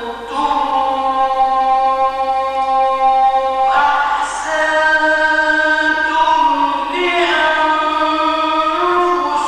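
A man's voice reciting the Quran in the melodic tajweed style, holding long ornamented notes: one long phrase, a brief break a little before four seconds in, then a second phrase that steps through several pitches.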